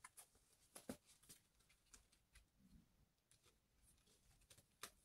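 Near silence, with a few faint ticks and rustles of paper-and-plastic packaging being handled. The clearest come about a second in and near the end.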